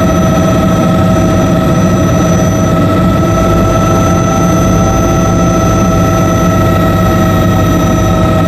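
Bell 206B JetRanger helicopter running steadily, its Allison 250 turboshaft giving a constant high whine over the low rumble of the rotor.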